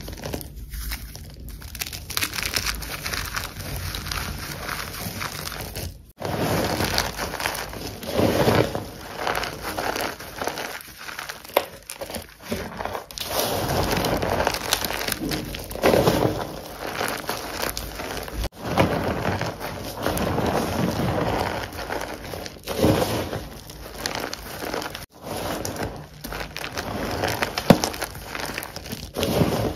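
Lumps of gym chalk crunching and crackling as hands squeeze and crumble them, with the sound coming in irregular louder swells. It breaks off for an instant a few times.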